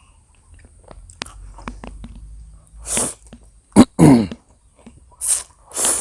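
A person's breathy mouth sounds while eating instant noodles: a few light clicks, then five short, sharp, noisy bursts from about three seconds on, the loudest a little before four seconds, one of them with a falling voiced sound like a sneeze or cough.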